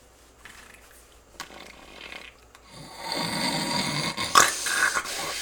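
A person snoring: one long, loud snore beginning about three seconds in, followed by a shorter one near the end.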